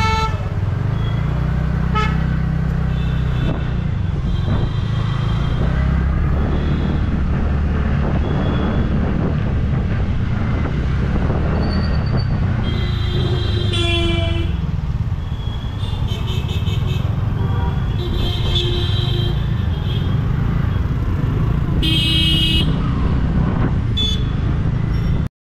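Vehicle horns honking again and again in slow, dense road traffic, several short beeps and a few longer blasts, over the steady low rumble of a scooter and the surrounding traffic.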